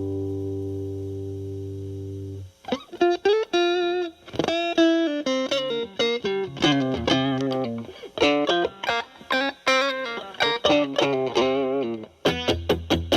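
Fender Stratocaster played through a Boss DS-2 Turbo Distortion pedal in its normal mode (turbo off), distortion at about 8 to 9, into a Marshall Valvestate's clean channel. A held chord rings out and is cut off about two and a half seconds in, then a lead line of single picked notes, ending in quick rhythmic chugs near the end.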